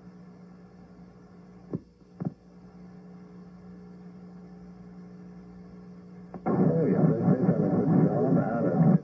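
Steady low electrical hum, broken by two short clicks about two seconds in. About six and a half seconds in, a much louder sound of music and voices cuts in abruptly, dull and lacking treble.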